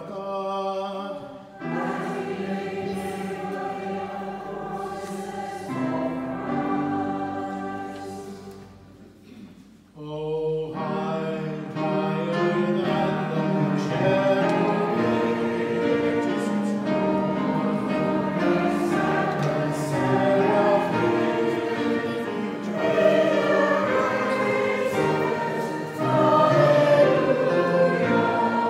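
A group of voices singing a hymn, dying away about eight seconds in and starting again about ten seconds in.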